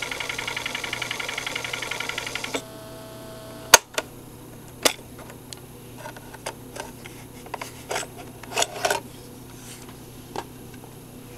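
Studebaker SB2129 portable cassette recorder rewinding, its motor and tape reels whirring with a fast, even flutter, until it cuts off suddenly about two and a half seconds in. About a second later there is a loud sharp click as the cassette door is ejected, then a run of small plastic clicks and rattles as the cassette is handled in the open deck.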